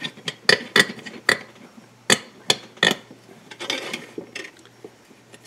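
Sharp metallic clicks and clinks, about six in the first three seconds, from steel wire rope and a take-up eye bolt being handled against a radial drive steering wheel, with a short scraping rub of the wire a little before four seconds in.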